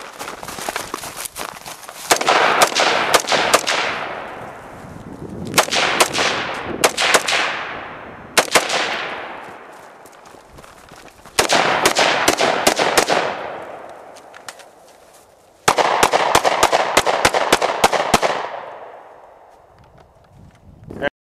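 Rapid strings of gunshots from a 5.56 mm AR-15 carbine and a 9 mm pistol: about five quick strings of several shots each, a few seconds apart, each trailing off in echo.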